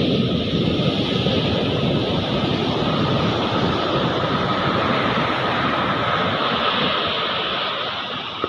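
Ocean surf rushing onto the beach, a loud steady wash that eases off near the end.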